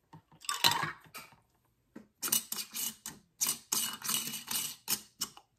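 Metal screw bands being twisted finger-tight onto glass mason jars of jam: a run of quick scraping clicks of metal threads on glass.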